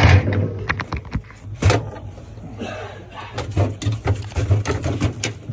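Scattered clicks, taps and knocks of plastic and metal parts being handled during refrigerator fan-motor wiring work, over a steady low hum.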